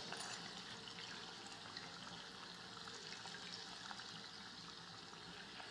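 Faint, steady sizzle of hot deep-frying oil in a pan, with oil dripping back into it from fried pastries held up to drain.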